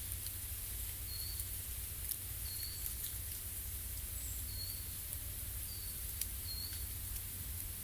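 A small bird repeating a short, high, slightly falling call note about once a second, over a steady hiss with scattered faint ticks.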